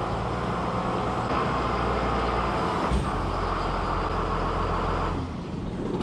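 Tractor diesel engine running steadily as it backs a manure spreader, with a single knock about halfway through. The low engine note drops away a little past five seconds.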